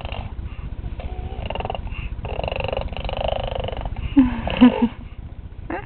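A baby making raspy, growling vocal noises, then two short, louder pitched squeals a little past four seconds in.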